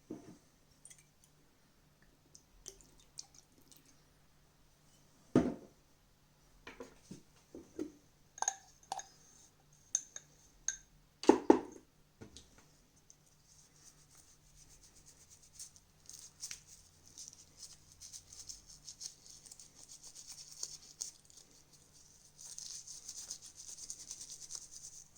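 Rubber button pad of a TV remote being handled and cleaned: a few knocks and clicks as it is picked up and moved, then steady scratchy scrubbing that gets stronger near the end.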